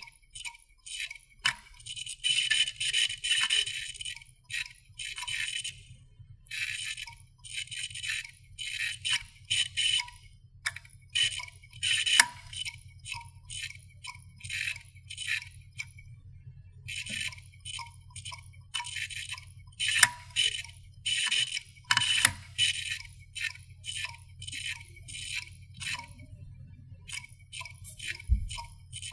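Dying computer hard drive clicking and chattering in irregular bursts of rapid ticks, with a few single sharp clicks between them, over a steady low hum from the spinning drive. The repeated clicking is the sign of a hard drive at the end of its life, crashing.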